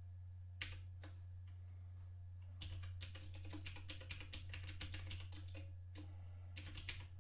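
Computer keyboard typing: a single keystroke about half a second in, then a quick run of keystrokes lasting about three seconds, and a few more near the end. A steady low hum runs underneath.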